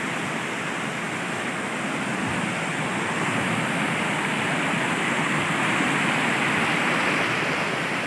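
Waterfall water rushing over rock ledges: a steady, even rush that grows a little louder midway.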